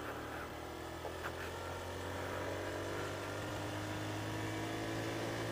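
1988 Honda ZB50's 50cc four-stroke single-cylinder engine running steadily under way, its note holding at an even pitch and growing slightly louder over the last few seconds.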